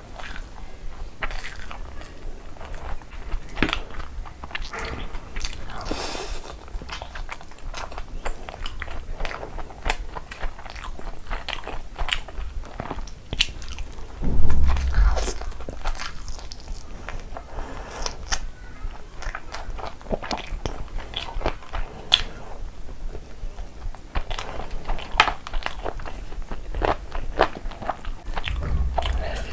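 Close-miked eating of mutton curry with pulao: biting and chewing, with many short clicking mouth sounds throughout. A low thump about halfway through is the loudest sound.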